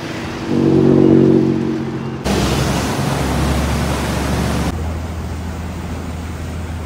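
Canal passenger boat's engine running with a steady low drone and its propeller churning the water into rushing noise as the boat pulls away from the pier. The sound changes abruptly about two seconds in and again near five seconds.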